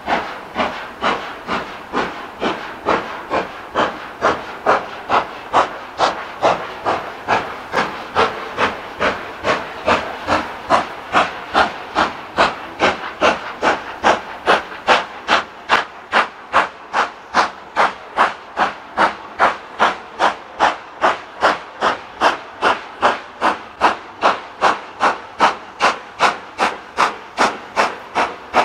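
Steam locomotive hauling a passenger train, its chimney exhaust beating evenly at about two to three beats a second. The beats grow louder and a little quicker as the train approaches.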